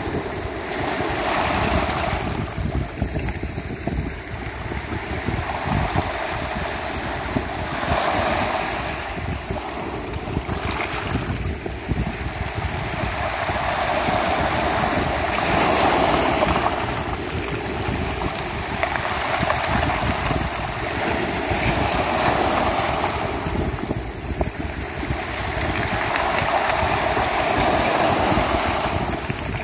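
Small waves breaking on a pebble beach, the water washing up over and back through the stones with a hiss that swells every few seconds.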